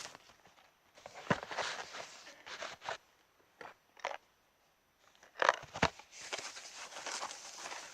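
Parcel packaging being opened by hand: cardboard and wrapping rustling and crackling in irregular bursts, with a few sharp knocks, the loudest about five and a half seconds in.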